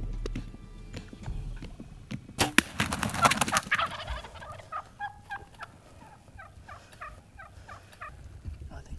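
Rio Grande wild turkeys just after a bow shot: a burst of loud wing-flapping and thrashing about two and a half seconds in, then a quick run of short turkey calls.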